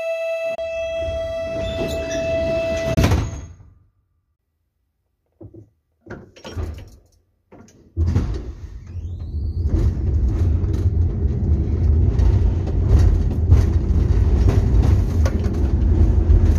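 Door warning buzzer on a Ganz electric rail vehicle giving a steady tone, then the sliding doors shutting with a bang about three seconds in. After a break and a few short knocks, the vehicle starts running with a steady low rumble and a short rising whine about nine seconds in.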